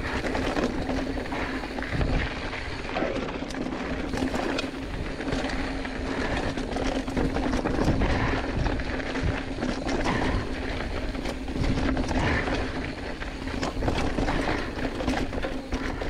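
Giant Fathom 2 hardtail mountain bike rolling fast over rocky dirt singletrack: tyres crunching on gravel with a steady hum, and repeated knocks and rattles as the bike hits rocks. Wind noise buffets a chest-mounted camera.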